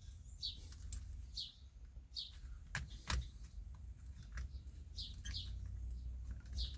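A small bird chirping repeatedly, with short, high, falling chirps about once a second. A couple of sharp clicks come about three seconds in, over a low steady hum.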